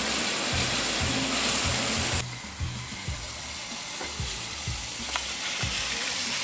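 Hose spray nozzle hissing as a jet of water spatters onto a car wheel and tyre, rinsing them. The hiss is louder for about the first two seconds, then drops to a softer level.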